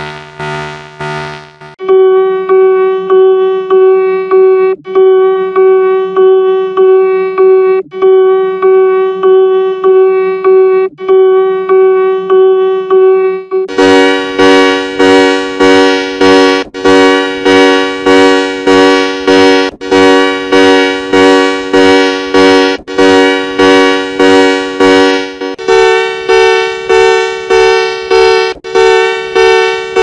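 Synthetic emergency-alert alarm tone, digitally altered by effects. It is a buzzy, horn-like tone that pulses regularly, about one and a half times a second. About fourteen seconds in it becomes a louder two-note chord, which steps up in pitch about twenty-five seconds in.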